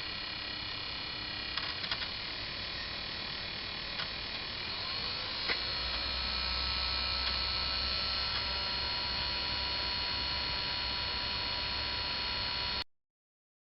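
Nintendo Wii's disc drive spinning a disc and making an abnormal noise: a steady whine of several tones with a few ticks. About five seconds in a rising tone and a louder low hum come in. The sound cuts off suddenly near the end.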